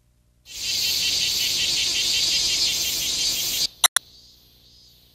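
Loud, dense chirring of insects with a fine pulsing texture, the summer-insect sound effect of an animated soundtrack. It cuts off abruptly near four seconds with two sharp clicks, and a much fainter high insect hum carries on after.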